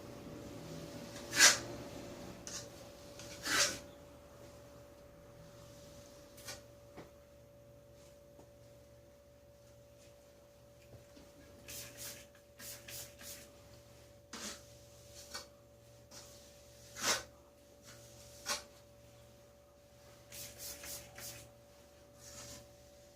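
Short rubbing strokes of a trowel smoothing wet anti-condensation insulation coating on a wall. They come a few seconds apart and sometimes in quick runs of three or four, over a faint steady hum.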